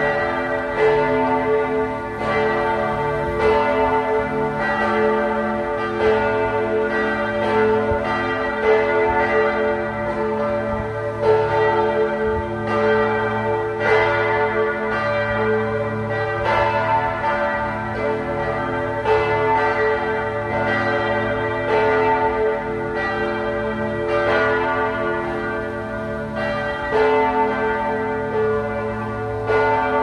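The Church of Saint Sava's bells pealing continuously: several bells of different pitch struck in quick, overlapping succession, their tones ringing on beneath the strokes.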